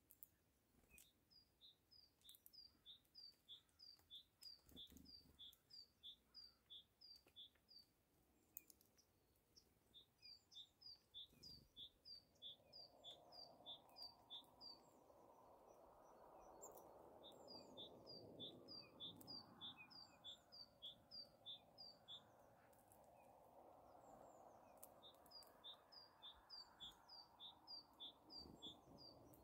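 A small songbird singing four long phrases of a high, rapidly repeated two-note figure, about two pairs a second, over faint rushing background noise that grows after the first dozen seconds.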